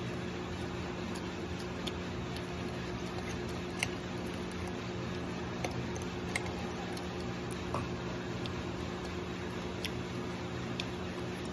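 A steady low machine hum, with scattered light clicks and taps of a metal spoon scooping balut out of a porcelain egg cup, and soft wet chewing.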